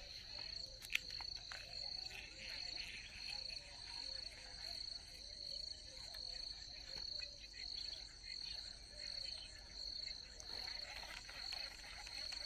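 Crickets chirping in a steady high pulsing trill, about two pulses a second. A single sharp click sounds about a second in.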